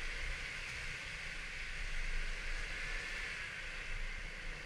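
Road noise from riding a Kymco Like 125 scooter on a wet street in the rain: a steady hiss over a low rumble.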